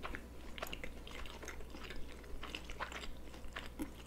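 People chewing sushi rolls with their mouths closed: quiet, irregular small clicks and smacks of chewing.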